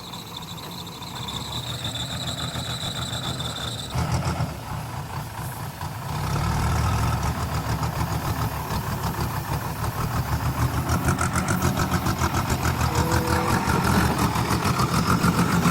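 Heavy diesel engine running under load. It grows louder and takes on a fast throbbing pulse from about six seconds in. A steady high whine cuts off about four seconds in.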